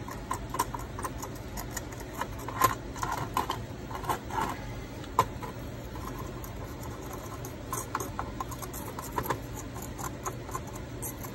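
Light irregular clicks, taps and scratches of steel pliers handling a freshly cast metal piece on a metal tray, cleaning off the crumbly mold residue. A few sharper ticks stand out between about two and five seconds in and again near nine seconds.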